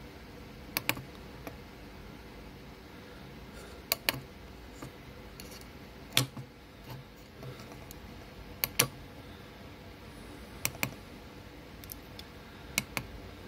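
Small tactile push buttons on an Arduino LCD keypad shield clicking as they are pressed and released: sharp clicks, mostly in quick pairs, every two seconds or so.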